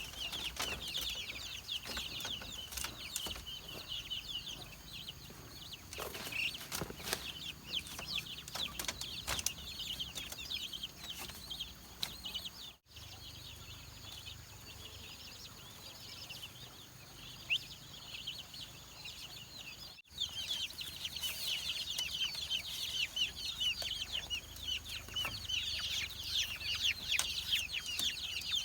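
A flock of chickens calling: a dense, continuous chorus of short high peeps and clucks. It thins out abruptly about 13 seconds in and comes back in full about 20 seconds in.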